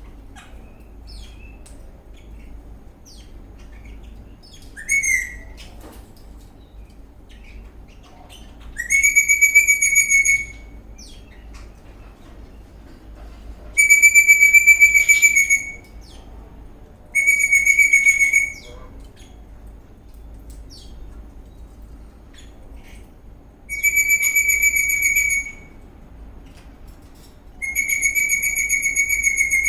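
Eastern rosella whistling: after a short rising whistle, five long, steady single-pitched whistles of a second and a half to two seconds each, a few seconds apart, with soft chirps in between.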